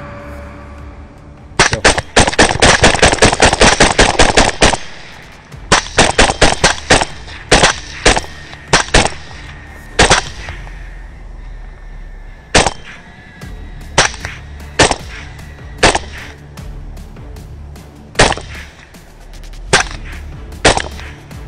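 Rifle fire: a fast string of shots for about three seconds, then several short quick strings and single shots spaced a second or two apart.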